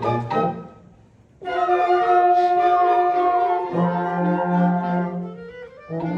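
A concert band of brass and woodwinds plays a light orchestral piece. Short detached notes break off into a brief pause, then the band comes in on a long held chord, and lower held notes follow.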